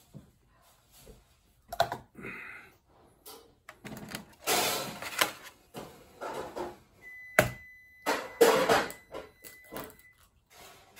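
Eggs being cracked against a mixing bowl and opened by hand: a few sharp knocks with bursts of shell and handling noise, the loudest about halfway through and again near the end. A faint steady high tone sounds for about three seconds in the second half.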